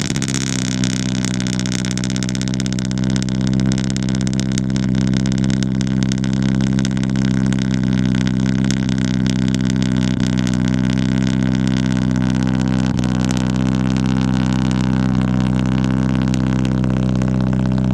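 A 2013 Scion FR-S's 2.0-litre flat-four boxer engine idling steadily through a newly fitted Invidia N1 exhaust, moments after being started. It gets slightly louder a few seconds in, then holds a steady note.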